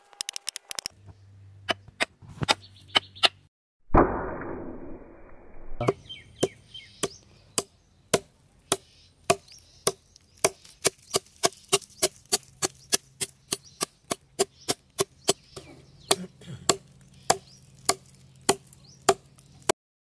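A wooden mallet knocking a chisel into the soft, fibrous top of a palm trunk, sharp strikes at about three a second. There is a fast run of clicks in the first second, and a brief loud noisy rush about four seconds in.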